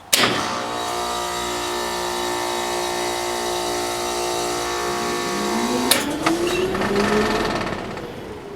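Trane XL16 heat pump switching on abruptly with a loud hum made of many steady tones. It runs about six seconds, then cuts out with a sharp click, after which a tone rises and then falls. The quick on-off is short cycling in heat mode.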